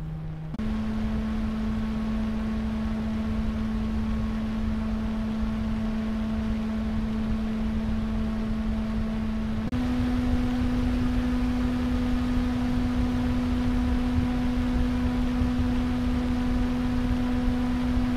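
Noctua NF-A14 industrialPPC-3000 PWM 140 mm fan running on its own: a steady pitched hum over a rush of airflow. The pitch and loudness step up just after the start and again about ten seconds in as the PWM duty is raised, ending at 70%, about 2100 RPM.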